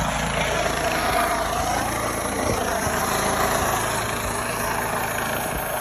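Medical helicopter running steadily as it comes in to land nearby.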